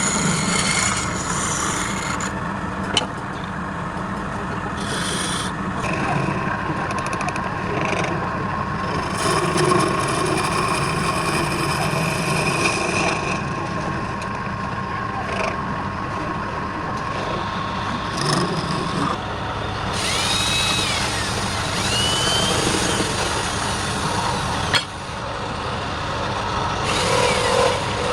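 Wood lathe running while a turning tool rubs against the spinning wood: a continuous rasping rub over a faint steady motor whine, with a sharp knock near the end.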